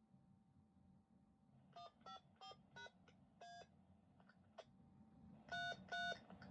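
Faint DTMF keypad tones from a handheld two-way radio: a quick string of short beeps, then two longer, louder ones near the end. They key in a command to the siren controller's encoder to play a pre-recorded voice message.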